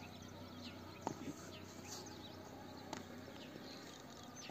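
Faint open-air ambience with small birds chirping repeatedly, short quick calls, and two short knocks, one about a second in and another about two seconds later.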